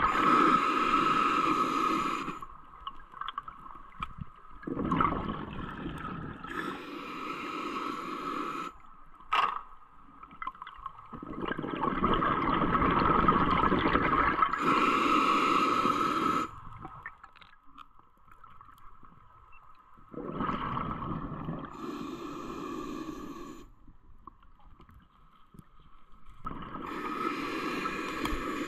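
Underwater audio of a scuba diver breathing through a regulator: a hiss on each inhale and a rush of bubbles on each exhale, repeating every several seconds, over a steady faint tone.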